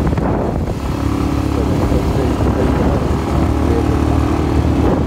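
Motorcycle engine running at a steady cruise, its hum holding an even pitch under a constant rush of wind and road noise.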